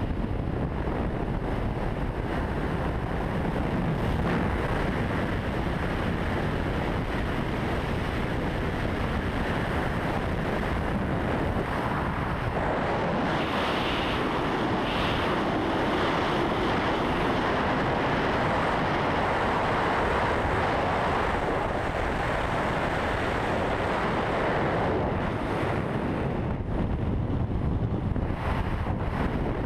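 Steady rush of wind over the microphone of a camera carried by a wingsuit pilot in flight, growing brighter and hissier for several seconds midway.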